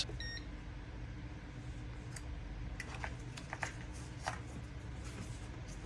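Faint light clicks and taps of a multimeter and its test probes being handled, over a low steady hum. A brief high electronic beep comes just after the start.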